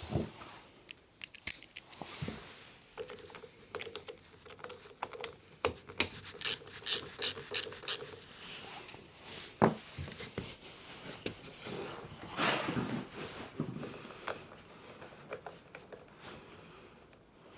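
Hand tools and metal engine parts clicking, knocking and scraping as a small lawnmower engine is taken apart, with a quick run of sharp clicks partway through and a longer scrape later.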